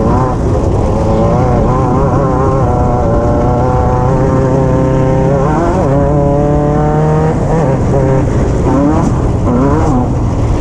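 Off-road race car's engine heard from on board, running hard under load. The revs climb for a couple of seconds, drop sharply a little over halfway in, hold briefly, then rise and fall again toward the end.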